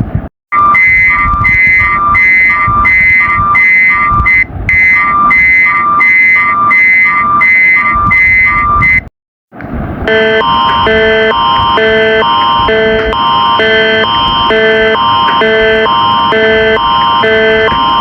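Canadian emergency alert attention signal: a loud electronic alarm alternating between two chords about twice a second, over a constant high tone. It cuts out for a moment about halfway through, then starts again with a lower-pitched pair of chords.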